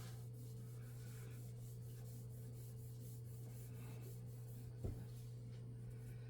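Faint rubbing of a cloth wiping baby oil over stainless steel, over a steady low hum, with one light knock about five seconds in.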